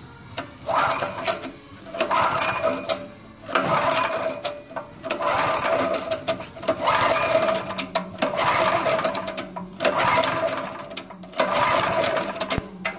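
Small petrol generator engine being pull-started over and over: about eight pulls of the recoil starter, each a second or so of rattling cranking with a short pause between, and the engine does not catch.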